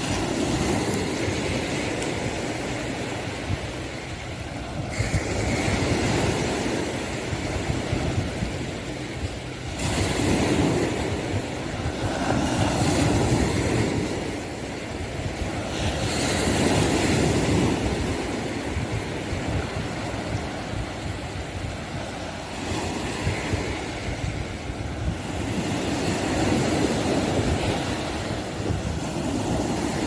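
Sea surf washing onto a beach, swelling and fading every few seconds, with wind rumbling on a phone microphone.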